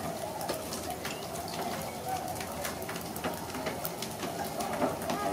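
A flock of swans calling in the distance across open water: faint, wavering, pitched calls over a steady hiss scattered with small irregular ticks.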